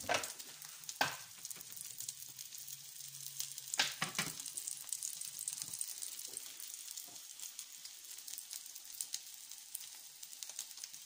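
French toast frying in oil in a frying pan: a steady sizzle with fine crackling, broken by a few louder sharp clicks near the start and about four seconds in.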